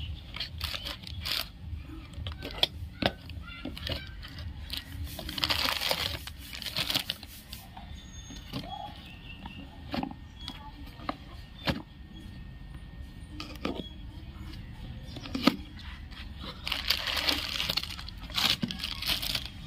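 Cardboard boxes and plastic wrapping being handled and opened by hand: scattered taps and clicks. Two longer stretches of rustling and tearing come about five seconds in and again near the end.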